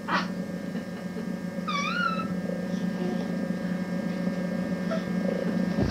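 A baby's short, high-pitched squeal about two seconds in, its pitch wavering up and down, over a steady low hum.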